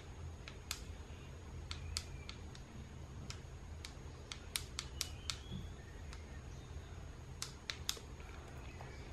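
Irregular small sharp clicks and ticks from the metal parts of a partly disassembled Yashica ML 50mm f1.4 lens being handled, over a faint steady low hum.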